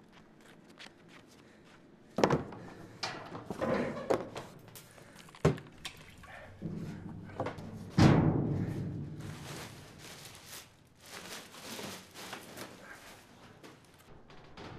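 Hollow knocks and thuds inside a metal dumpster, the loudest about eight seconds in, ringing on for a second or more, with plastic garbage-bag rustling and lighter clatter in between.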